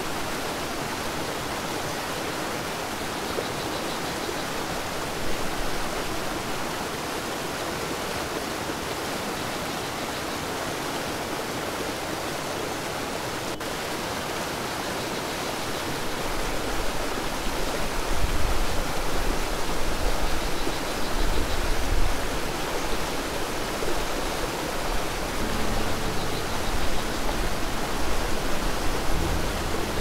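Steady rushing of a muddy, fast-flowing river, the Rio Grande. About halfway through, a louder, uneven low rumble joins the hiss as the water sounds closer.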